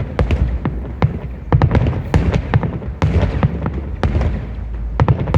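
Fireworks finale barrage: many shells bursting in quick succession, several sharp bangs a second with crackle over a continuous deep rumble of booms.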